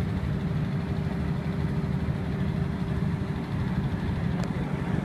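Electric centrifugal air blower running steadily to keep an inflatable ring inflated: a continuous low motor hum and fan rush with a steady tone.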